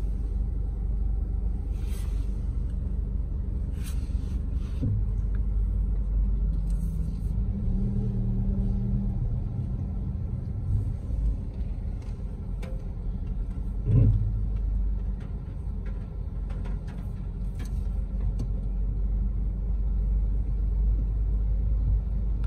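Low, steady rumble of a car heard from inside its cabin as it creeps forward in slow traffic, with a few faint clicks and a brief louder bump about fourteen seconds in.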